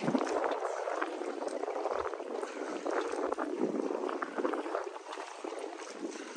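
Sea water sloshing and splashing against a boat, a continuous grainy wash of water noise.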